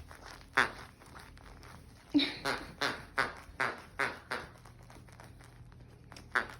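German Shepherd mix puppy chewing his toy duck, giving a quick run of short squeaks, about three a second, with single ones before and after.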